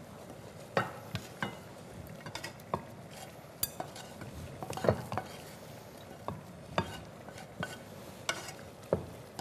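A wooden spatula scraping and tapping inside a non-stick frying pan as cooked minced-meat filling is pushed out into a ceramic bowl. The knocks come irregularly, the loudest about five seconds in.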